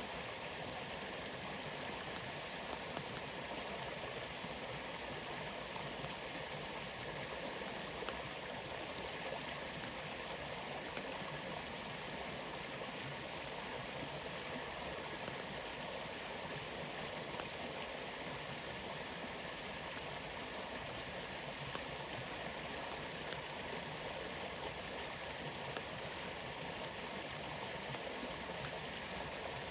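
Steady rush of a rainforest waterfall, with light rain falling as faint scattered drop ticks.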